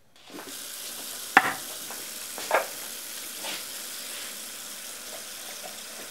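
Kitchen tap running into a sink as a steady hiss, starting just after a brief silence, with two loud clinks of crockery or pans being washed about a second and a half and two and a half seconds in, and a softer one a second later.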